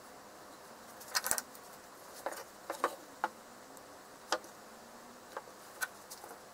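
Irregular sharp clicks and light taps, loudest in a cluster about a second in: small plastic spring clamps being fitted onto a wooden strip, with the wood shifted against the board on a workbench.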